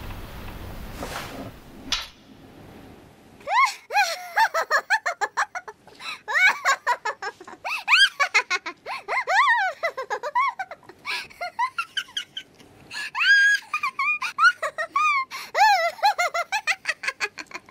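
High-pitched giggling laughter in rapid squealing bursts, each rising and falling in pitch, starting a few seconds in. Before it comes a hiss that ends in a sharp click.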